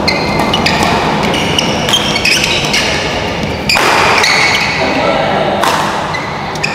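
Badminton match play in a sports hall: sneakers squeaking repeatedly on the court floor and sharp racket strikes on the shuttlecock, a louder one about two-thirds of the way through, over steady spectator chatter.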